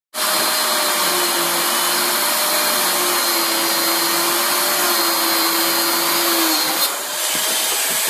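Handheld corded electric power tool running steadily with a whine over a hiss; its pitch sags and the level dips briefly near the end, as if under load.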